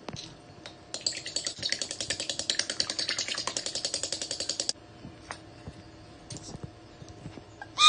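A fork beating eggs in a bowl: fast, even clicking of metal against the bowl for nearly four seconds, which stops abruptly.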